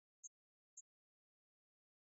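Near silence broken by two brief, faint high-pitched chirps about half a second apart.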